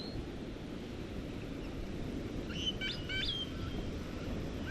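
Birds chirping: a short run of quick calls that jump up and down in pitch about halfway through, over a steady low rumble of background noise.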